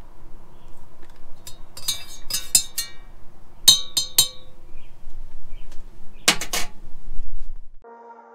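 A teaspoon clinking against an enamel tea mug in three short runs of quick taps, each tap leaving a brief metallic ring. Music begins near the end.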